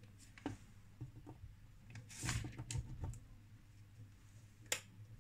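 A few faint clicks and knocks of hands handling the bench and cables, the sharpest near the end, over a low steady hum. The unit itself stays silent as mains is applied, with no relay click, because its 5 V relay is not energised.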